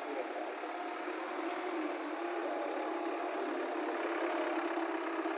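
JCB backhoe loader's diesel engine running steadily, growing slightly louder.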